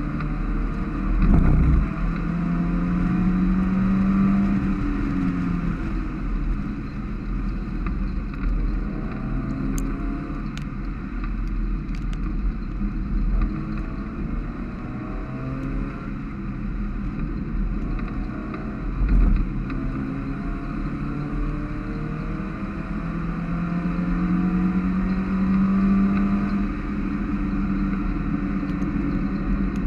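Mazda MX-5 race car's four-cylinder engine heard from inside the cockpit, pulling up through the revs with a rising pitch near the start and again in the last third, over a steady hiss of tyres on a wet track. Two short loud thumps, one about a second and a half in and one past the middle.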